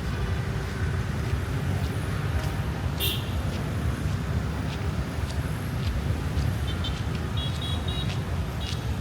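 Street traffic ambience: a steady low rumble of passing vehicles, with a short high sound about three seconds in and a few quick high horn beeps near the end.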